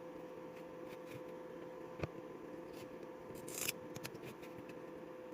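Quiet handling sounds while a cordless-drill battery pack is dismantled: a sharp click about two seconds in, then a short scratchy rasp a little later and a few faint ticks.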